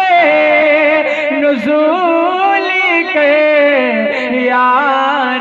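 A young man singing a naat solo, amplified through a stage microphone, on long drawn-out melismatic vowels with wavering, ornamented pitch. The line sinks to a lower note about four seconds in.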